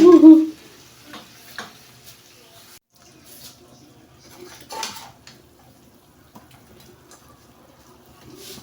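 Spoon stirring fried chicken through thick pepper sauce in a frying pan: soft, scattered scrapes and knocks against the pan, the clearest a little under five seconds in.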